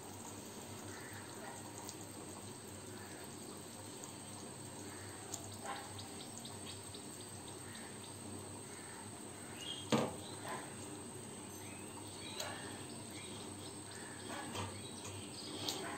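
Curry broth simmering gently in a pan over a low gas flame, with a few soft plops and clicks as fried rui fish pieces are set into it; the sharpest comes about ten seconds in.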